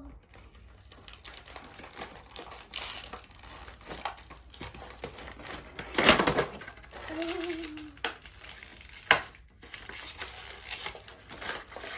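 A cardboard doll box and its clear plastic tray being handled and opened: rustling, crinkling and sharp clicks of card and plastic, with a louder scraping rustle about six seconds in as the inner box slides out. A child's short voice sound comes just after it.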